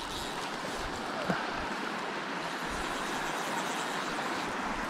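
Steady rush of a small creek's running water.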